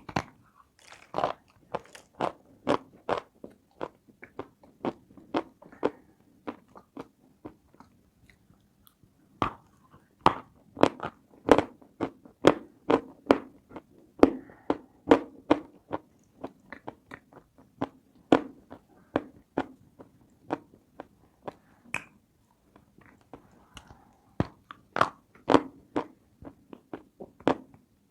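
Close-miked biting and chewing of crunchy cookies: a long run of sharp crunches, a few a second, with two short pauses between mouthfuls.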